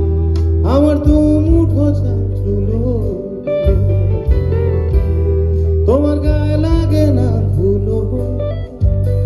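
Live band music: a lead melody of bending, sliding notes over a heavy, steady bass, with the same phrase repeating about five seconds later.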